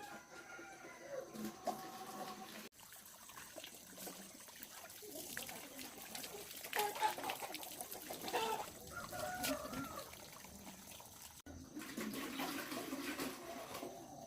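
Chickens clucking among other farmyard noises, broken by two abrupt cuts in the sound.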